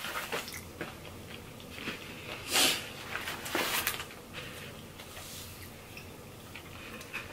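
Close-up chewing with rustling and crackling from a cardboard takeout box and a foam drink cup being handled. The loudest sound is a short crackle a little after two seconds, followed by a longer rustle about a second later.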